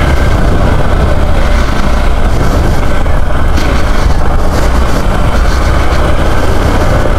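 Hero Xpulse 200 motorcycle's single-cylinder engine running steadily while the bike rides along a grassy off-road trail.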